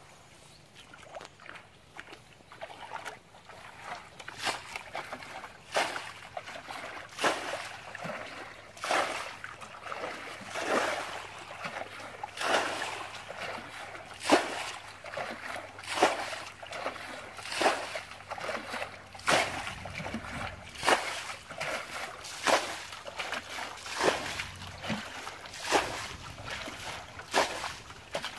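Muddy pond water being bailed out with a bucket: a splash as each bucketful is poured out, about every second and a half, with water sloshing in between. The pouring settles into a steady rhythm a few seconds in.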